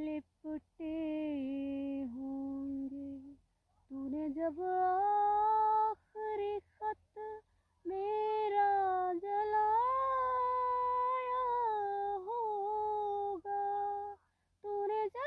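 A high voice, a woman's or a child's, singing or humming a slow melody in long held notes with short pauses between phrases.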